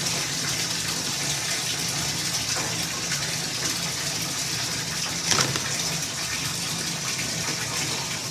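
Bath tap running, water pouring steadily into a filling bathtub, with one brief louder sound about five seconds in.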